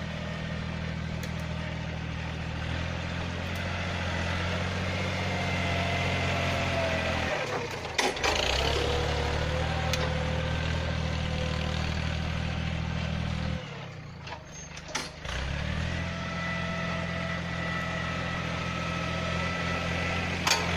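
Yanmar 1145 tractor's diesel engine running steadily under load while pushing dirt with its front blade, with a faint whine above the engine note. The engine sound breaks off briefly about eight seconds in and again for about two seconds later on, with clicks around the breaks.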